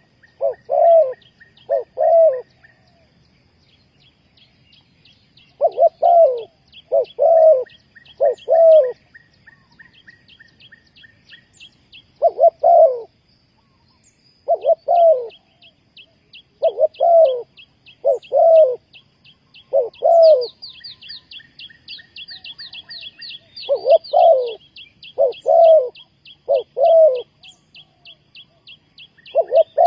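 Spotted dove cooing: loud, low coos in groups of three or four, with pauses of a few seconds between groups. A small bird keeps up a quick run of faint, high chirps behind it.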